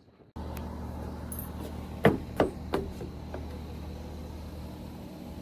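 A steady low mechanical hum that starts abruptly, with three sharp knocks in quick succession about two seconds in.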